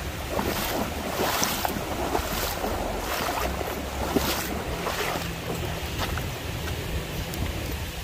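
Water rushing over a concrete dam spillway and down the shallow stream below it, a steady wash of noise, with wind buffeting the microphone. Scattered short crunches and clicks run through it.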